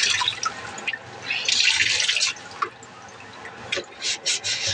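Water from a kitchen tap running and splashing in the sink as dishes are washed: a louder gush in the first half, then a run of short splashes near the end.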